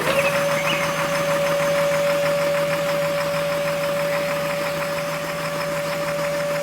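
Small electric motor running with a steady high whine at one constant pitch, over a low hum.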